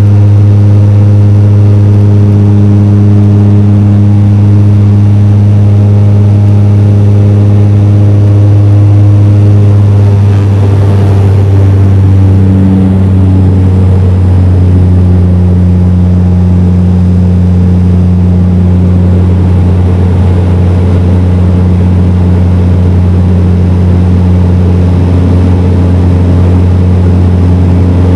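Bombardier Dash 8 Q400 turboprop's Pratt & Whitney PW150A engines and six-blade propellers, heard from a cabin window seat beside the propeller: a loud, steady low drone while the aircraft climbs after takeoff. Its tone shifts slightly about eleven to thirteen seconds in.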